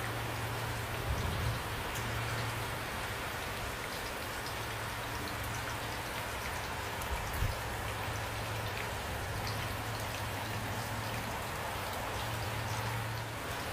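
Steady rain with individual drops ticking, over a low steady hum; two brief soft thumps, about a second in and about halfway through.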